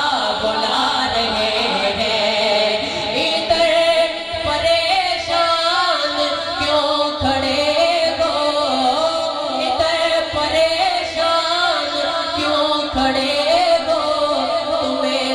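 A man's voice singing a naat into a public-address microphone, drawing out long wavering notes that bend up and down without a break.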